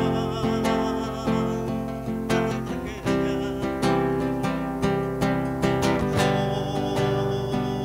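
Acoustic guitar strummed and plucked solo, chords struck in a steady rhythm with no singing.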